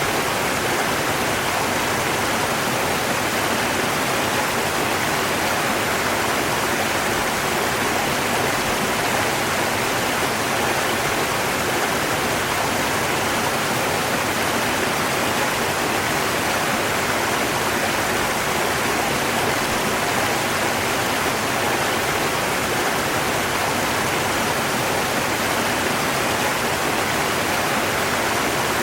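River water rushing in a steady, unbroken flow.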